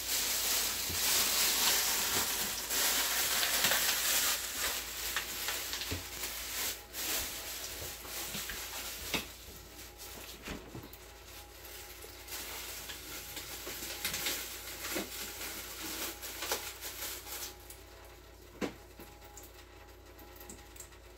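Kitchen work sounds: a hiss that is loudest for the first few seconds and then fades, with scattered clicks and knocks of utensils and dishes.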